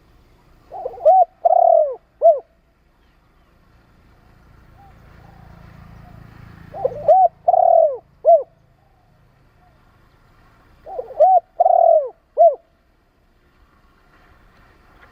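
A spotted dove coos three phrases about four seconds apart. Each phrase is a few quick coos, then a longer drawn-out coo, then a short final coo.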